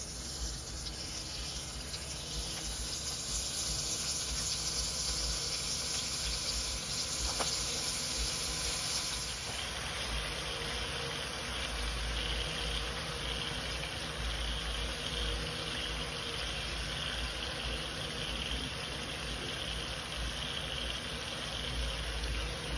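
Sea scallops searing in hot butter in a cast-iron skillet: a steady sizzle, its tone changing slightly a little under halfway through.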